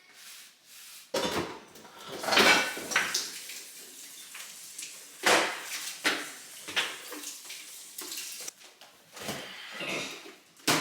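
Kitchen dishes and utensils clattering as they are handled: irregular knocks and clinks, the loudest about two and a half seconds in and again about five seconds in.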